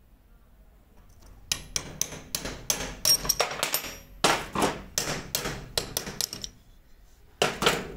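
A hammer striking a steel pin punch to drive a rusted pin out of an antique car jack's parts. The metal-on-metal strikes come quickly, about four a second, starting about a second and a half in. They break off briefly and end with a last couple of blows near the end.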